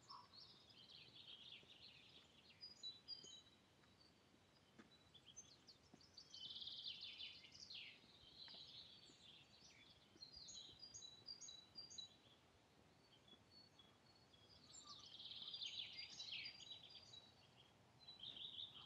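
Faint songbirds singing and chirping, several overlapping calls and trills coming in bursts throughout.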